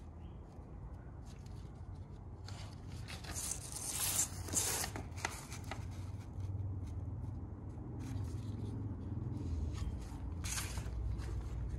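Template paper rustling and scraping as it is handled and folded, in a few short bursts, loudest about four to five seconds in and again near the end, over a steady low hum.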